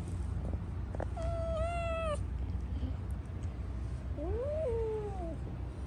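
Persian cat meowing twice: a long, fairly level meow about a second in, then a second meow near the end that rises and then falls in pitch.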